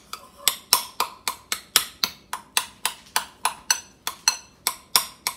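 Metal spoon clicking against a ceramic bowl about four times a second while mashing and stirring crumbly hard-boiled egg yolks.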